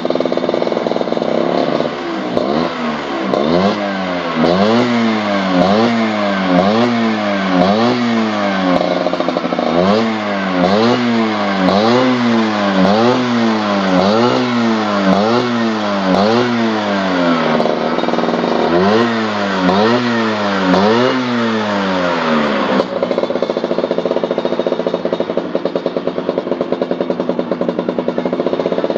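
Motorcycle engine breathing through a PRP aftermarket muffler, blipped over and over, about one rev a second, each rev rising and falling back. It idles steadily at first, pauses briefly partway through, and settles back to a steady idle for the last few seconds.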